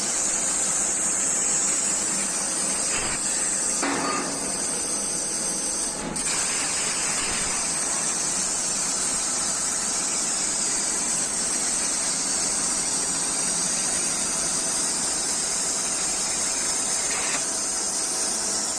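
Plasma torch of a CNC plasma cutting machine cutting metal: a steady, loud, high hiss of the arc, with a few short squeals and a brief break about six seconds in.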